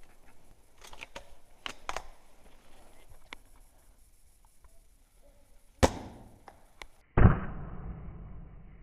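Two sharp cracks from a spring-powered bolt-action airsoft sniper rifle (Ares Amoeba Striker), about a second and a half apart, the second louder with a short decaying tail. Light scattered clicks and crunches come before them.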